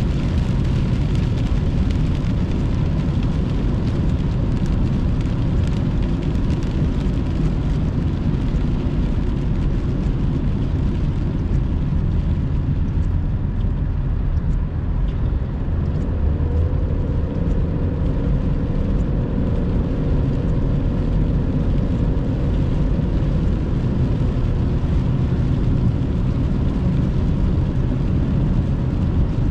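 Steady road and engine noise inside a moving car driving on a wet road in rain, with fine ticks scattered through it.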